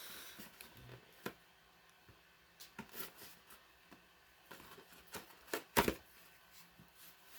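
A box and its packaging being handled by hand during unpacking: scattered light rustles and clicks, with a cluster of louder knocks about five to six seconds in.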